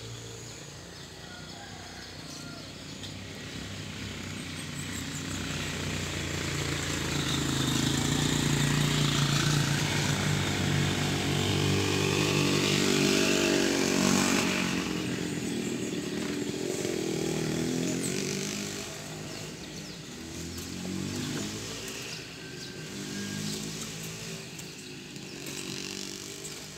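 Small petrol engine running, growing louder over several seconds to a peak near the middle, then dropping in pitch and fading, with a few smaller uneven swells near the end.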